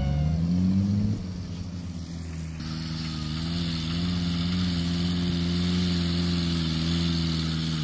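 Off-road 4x4 engine revving, its pitch rising for about a second, then a steady engine drone with a slight waver in pitch and some wind noise.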